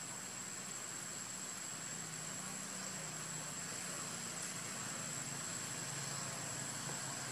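Steady outdoor background: an even hiss with a constant high, thin insect-like whine over a low hum that wavers slightly in pitch. No calls from the monkeys.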